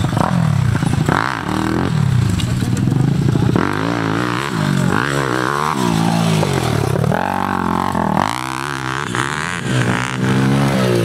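Small four-stroke pit bike engines revving up and dropping off again and again as the bikes are ridden around a dirt track, the pitch rising and falling every second or two.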